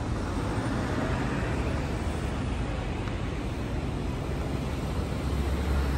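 City street traffic noise: a steady wash of passing vehicles, with a deep low rumble swelling near the end.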